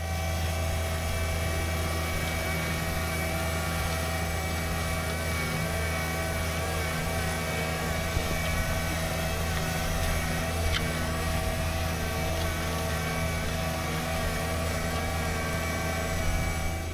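John Deere 1025R sub-compact tractor's three-cylinder diesel engine running steadily under load as it pulls a disc harrow through garden soil, with a wavering whine over the drone.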